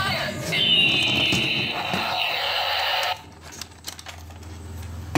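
A battery-operated toy tank plays electronic sound effects through its small speaker: a shrill, alarm-like tone that slides downward. It cuts off suddenly about three seconds in, leaving only a few faint clicks of handling.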